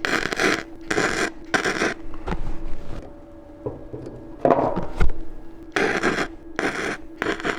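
Metal file scraping in repeated strokes over a weld build-up on a fan motor shaft, dressing the weld down, with a pause partway through. A faint steady hum runs underneath.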